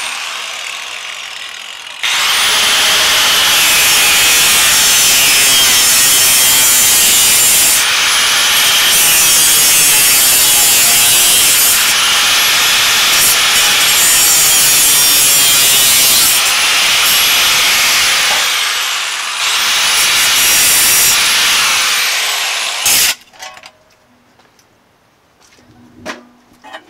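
Yellow DeWalt angle grinder with a cut-off disc cutting through a metal pipe, throwing sparks. It runs in several long passes, the disc's whine rising each time it spins back up, and stops near the end.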